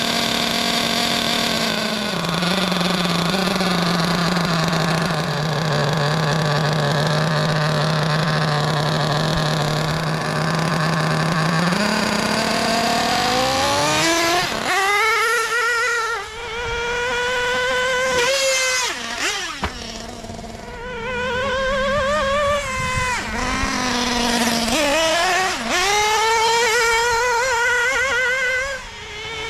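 LRP 0.32 (5.2 cc) nitro engine of a 1/8-scale buggy idling steadily for about twelve seconds. It then revs hard again and again, its high-pitched whine rising and falling as the throttle is opened and closed.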